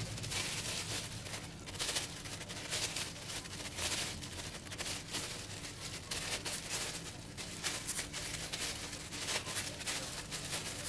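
A knife scoring and peeling the skin of raw green Nam Wa bananas while thin plastic gloves and a plastic bag crinkle: an uneven run of short scrapes and crackly rustles.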